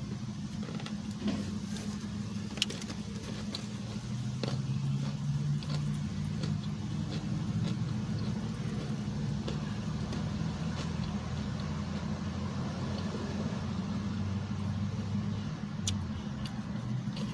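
Steady low mechanical hum, with a few faint clicks and taps over it.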